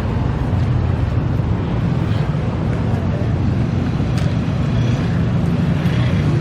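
Steady low rumble of engines in nearby street traffic, with a few faint ticks over it.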